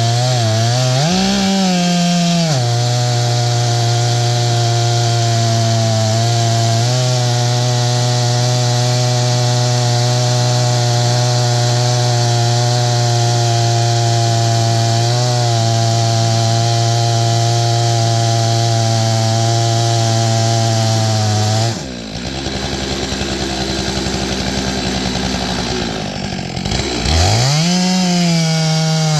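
Stihl MS661 two-stroke chainsaw on an Alaskan mill, ripping pine with a full chisel chain and running steadily under load, with a brief rise in revs about a second in. About 22 seconds in, the engine drops to a lower, rougher note for several seconds, then revs back up and settles into the steady cutting note again.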